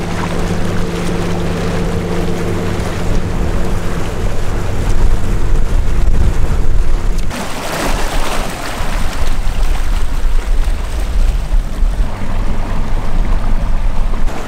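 Water rushing and churning around a small inflatable dinghy under way, with wind rumbling on the microphone. A steady low hum is heard in the first few seconds, and the water noise changes about seven seconds in. The Torqeedo electric outboard's own sound is buried under the water turbulence.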